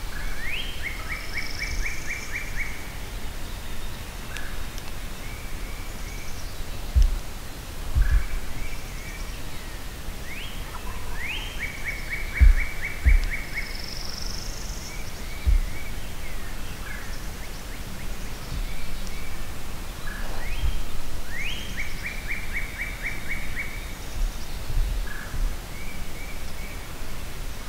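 Woodland songbirds: one bird repeats a short song about every ten seconds, a quick rising note and then a fast trill of about eight notes, while other birds chirp now and then. A few low thuds, the loudest near the middle, break in over the top.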